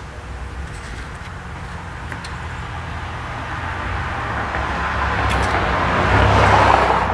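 A passing road vehicle, its noise growing steadily louder over several seconds, loudest near the end and then falling away, over a steady low hum.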